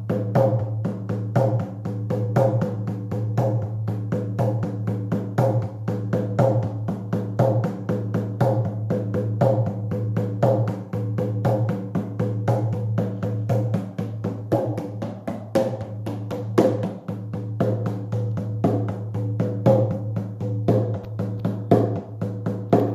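Shamanic drum beaten in a fast, steady, even rhythm for a trance journey, with a stronger stroke about once a second over the drum's constant low ringing.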